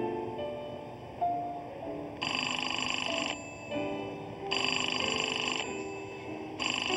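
Payphone ringing: three rings about a second long each, the first about two seconds in, over soft background music.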